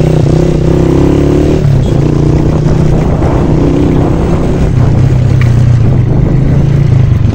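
Honda 125 motorcycle's single-cylinder four-stroke engine running steadily under way; its note changes once, a little under two seconds in, then holds.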